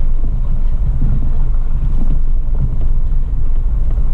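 Steady low rumble inside the cabin of a Toyota FJ Cruiser driving slowly on a dirt forest road: its 4.0-litre V6 and its tyres on the packed dirt, with a few faint knocks from the body.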